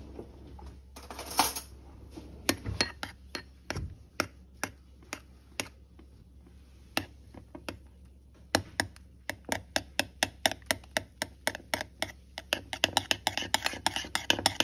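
Metal teaspoon clinking against a small ceramic bowl while stirring a soy sauce mixture. Scattered clinks at first, then steady rapid clinking, about four a second, from just past halfway, quickening near the end.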